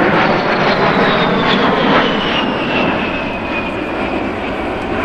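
US Air Force A-10 Thunderbolt II's twin TF34 turbofan engines on a loud pass: a broad rushing jet noise with a high whine that falls steadily in pitch as the aircraft goes by.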